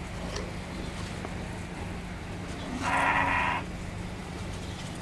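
A single bleat from a penned milking animal, one call of under a second about three seconds in, over a steady low hum.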